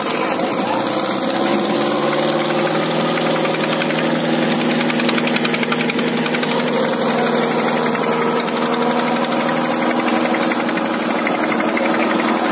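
Diesel engines of a Swaraj 855 and a Powertrac Euro 60 tractor running hard under load as the two pull against each other in a tug-of-war. The engine note is a steady drone.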